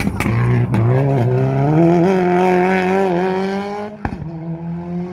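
Rally car engine at high revs on a gravel stage. It climbs in pitch about a second in and holds high and loud, then drops away to a lower, quieter note about four seconds in.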